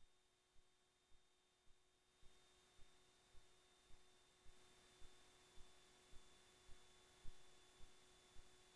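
Near silence: a faint steady electrical hum with a soft low tick repeating about twice a second, and a slight rise in hiss about two seconds in.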